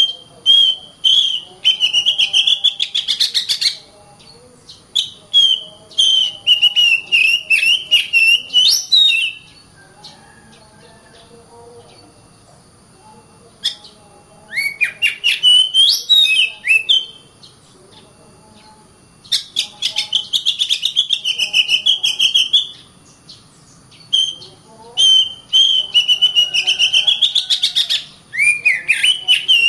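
Oriental magpie-robin (kacer) singing in bouts of a few seconds: loud warbled whistled phrases mixed with rapid clicking notes, with short pauses between bouts.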